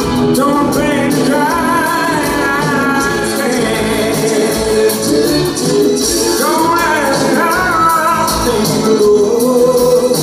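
A pop band playing live, with a male lead voice singing over guitars, keyboards and drums.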